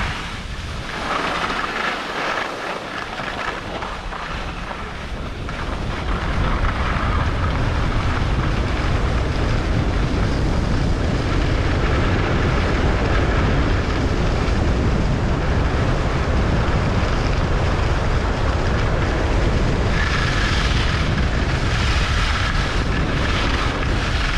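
Wind rushing over the microphone of a camera carried by a skier going downhill, a steady rumble that grows louder from about six seconds in, with the hiss and scrape of skis on the snow, clearest near the start and near the end.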